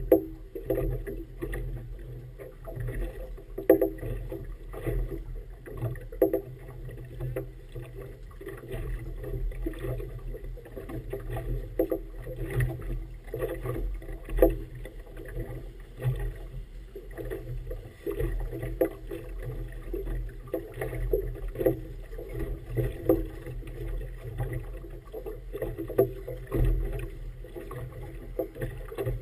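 Small waves slapping and lapping irregularly against the hull of a small boat rocking in choppy water.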